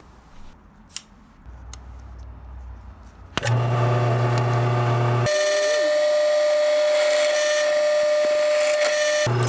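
A few faint clicks, then a drill press starts about three and a half seconds in and runs with a steady motor hum. From about five seconds in until near the end, the sound changes to a steady high whine with hiss as the bit cuts into the metal bracket. The motor hum returns just before the end.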